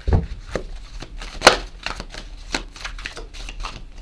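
Tarot cards being shuffled by hand: a run of irregular card clicks and flicks, with a sharper snap about a second and a half in and a low thump at the very start.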